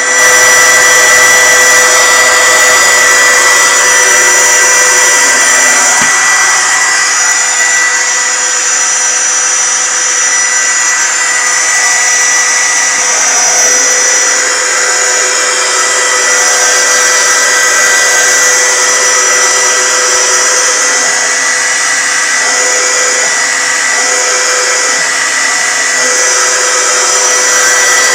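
Simulated jet-turbine sound from a Mr. RC Sound module played through four transducers in a model airplane: a steady high turbine whine over a rushing jet noise, held at a loud, even level.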